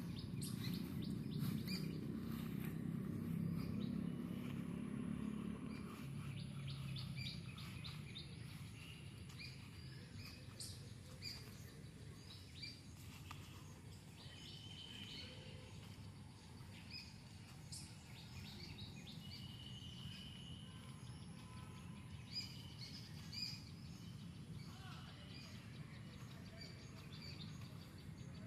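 Wild birds chirping and calling, many short chirps with a few longer held whistles, over a low rumble that is strongest for the first six seconds and then fades.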